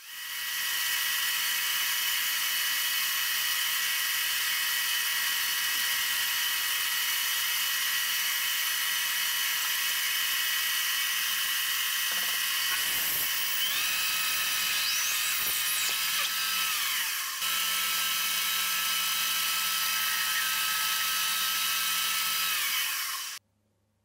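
High-pitched whine and hiss of an electric machine tool running at speed. Its tones shift in pitch about two-thirds of the way through, and it cuts off suddenly near the end.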